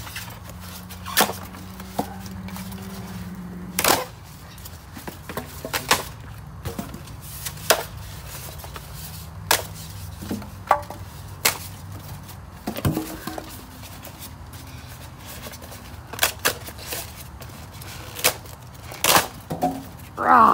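Styrofoam packing blocks being snapped and broken apart by hand: a dozen or more sharp cracks at irregular intervals, over a low steady hum.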